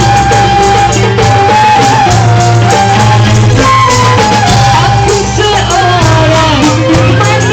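Loud music with a sung melody over a strong bass line.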